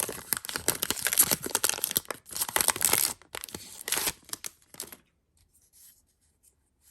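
Foil wrapper of a Pokémon card booster pack being torn open and crinkled: dense crackling rustle that stops about five seconds in.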